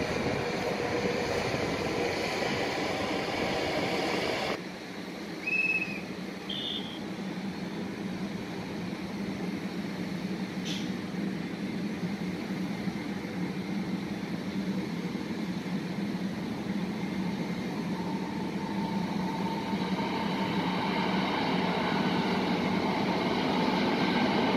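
Electric passenger trains at a station: the steady rumble of a train on the track, with two short high beeps about five and a half and seven seconds in, and the noise of a second train growing louder over the last several seconds.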